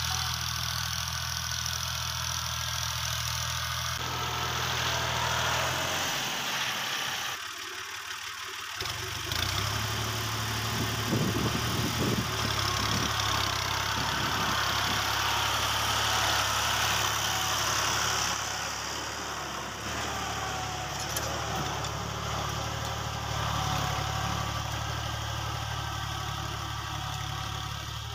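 Fiat 480 tractor's three-cylinder diesel engine running steadily while it pulls a cultivator through the soil. The engine sound fades briefly about six seconds in and comes back about three seconds later, with a few knocks soon after.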